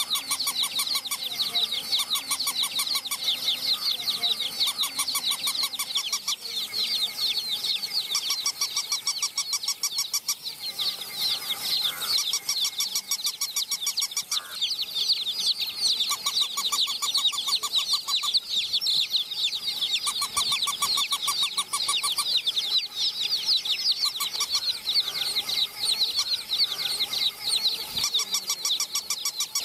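A flock of baby chicks peeping, many high, short, falling cheeps overlapping without pause. A fast, even ticking comes and goes in spells of a second or two.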